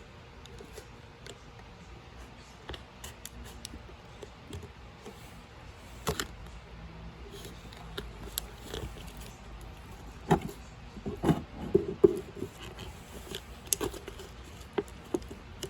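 Scattered light taps, clicks and rustles of hands pressing a new adhesive keypad sticker into place on a plastic digital scale. The handling is busiest and loudest about ten to twelve seconds in.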